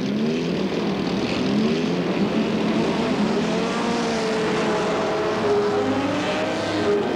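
Several historic sports racing cars' engines revving together, their pitches rising and falling and crossing one another.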